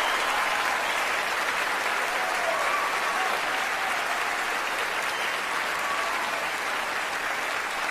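Audience applauding steadily, the applause easing off slightly toward the end.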